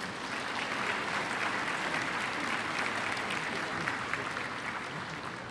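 A large audience clapping together. The applause swells within the first second and then slowly fades toward the end.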